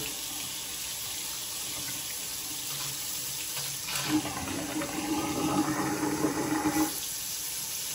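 Hot water running from a newly installed bathroom sink faucet, splashing into the basin and drain in a steady stream. A low steady hum joins about halfway through and lasts about three seconds.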